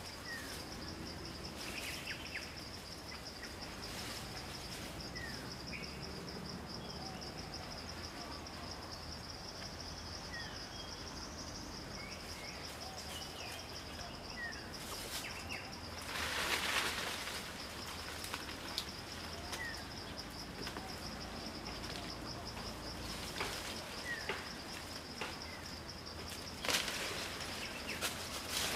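Forest ambience: a steady, high, pulsing insect drone with scattered short, downward-sliding bird chirps. Two louder bursts of rustling noise break in, one a little past the middle and one near the end.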